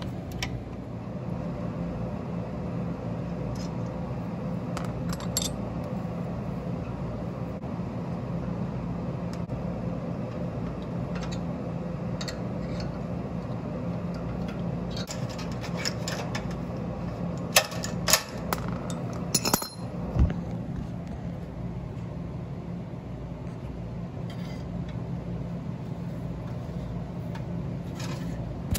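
Wrench clinking against bolts and metal fittings while parts are tightened under a truck: scattered sharp metallic clinks, with a cluster of louder ones about two thirds of the way through, over a steady low hum.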